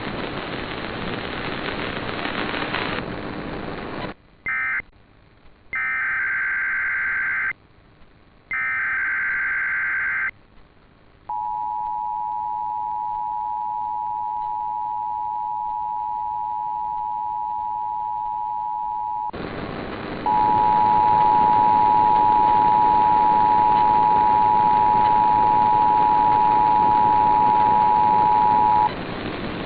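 Emergency Alert System tones off the air: after a few seconds of hiss come three bursts of shrill, buzzy SAME digital header data about a second apart, then the steady two-tone EAS attention signal for about eight seconds. After a short gap filled with hiss, the two-tone attention signal sounds again, louder, for about eight and a half seconds, marking the start of a Required Monthly Test alert.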